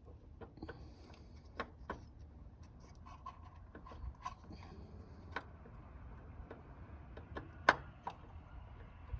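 A new high-pressure fuel pump is worked into its mounting on a 2008 Mini Cooper S engine, giving scattered light clicks and knocks as it is manoeuvred and seated. The sharpest knock comes near the end.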